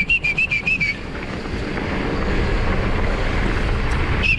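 Mountain bike rolling along a gravel forest road, with tyre noise and wind on the microphone. A quick run of short high chirps, about six or seven a second, sounds in the first second and starts again just before the end.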